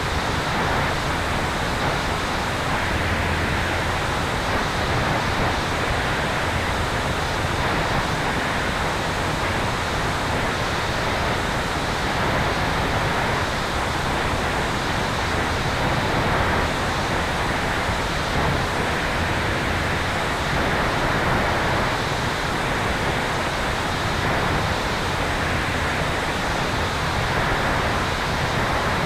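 Steady rushing airflow over a camera mounted on the tail of an electric airplane in flight: an even, unbroken wind noise with no engine tone.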